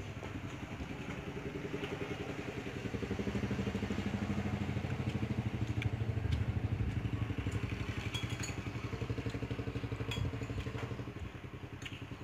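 A small engine running steadily, growing louder for several seconds in the middle and then fading, with a few light clinks of a spoon on a plate.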